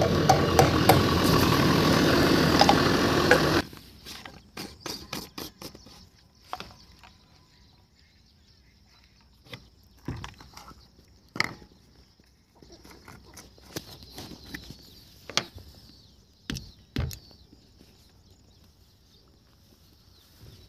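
Tractor engine running loudly, cutting off suddenly about three and a half seconds in. After that, a quiet stretch with scattered knocks and clicks over a faint, steady high-pitched hiss.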